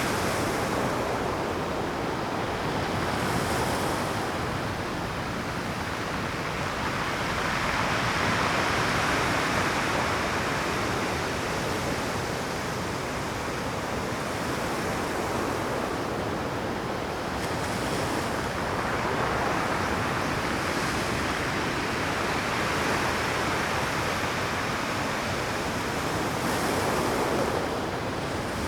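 Rough Pacific surf breaking on a rocky shore: a continuous wash of water that swells three times as bigger waves crash in.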